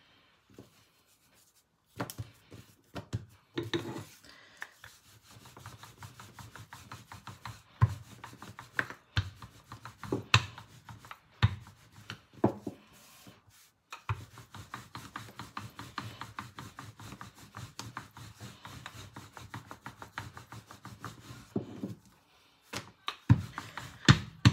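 Wooden rolling pin rolling dough back and forth on a floured board: a steady rubbing, with a few sharper knocks from the pin. It starts after about two seconds of quiet and pauses briefly twice.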